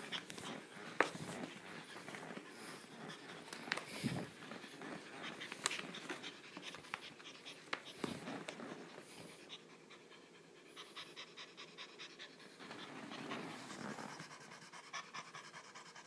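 Scattered light scratches and taps on a rug, then a young cat panting open-mouthed in a quick, even rhythm from exertion after hard play.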